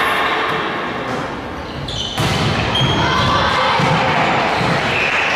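Volleyball game in a gym hall: ball hits and thuds on the wooden court, with a sharp impact about two seconds in, amid many voices shouting and cheering.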